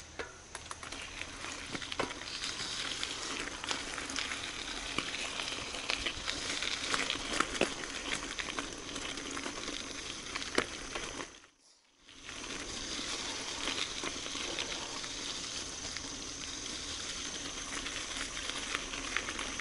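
Mountain bike riding on a dirt or gravel trail: a steady crunching crackle of tyres over loose ground, with many small clicks and rattles. It drops out briefly a little past halfway.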